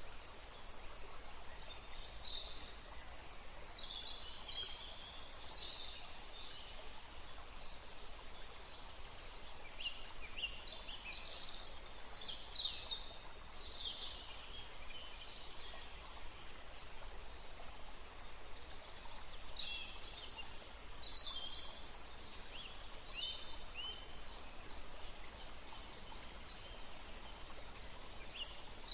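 Small birds chirping and trilling in short, high calls that come in clusters, over a steady hiss of outdoor background noise.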